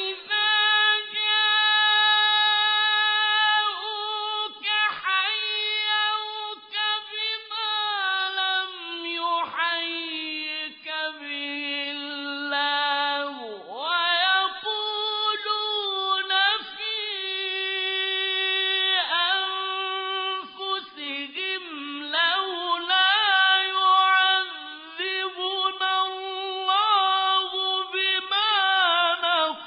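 Solo male voice chanting Quran recitation in the melodic mujawwad (tajweed) style, unaccompanied. Long, high held notes with melismatic ornaments and short pauses between phrases.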